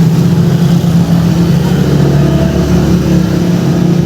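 Motor vehicle engine running close by, a steady low hum with a slight wavering in pitch.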